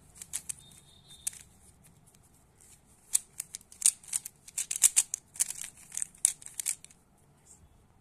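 Plastic 3×3 Rubik's cube being scrambled by hand: rapid clicking and clacking of its layers turning, in quick bursts. It stops about seven seconds in.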